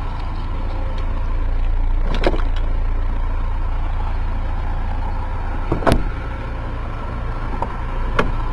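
A car door shutting with one sharp thump about six seconds in, over a steady low rumble, with a smaller click near the end.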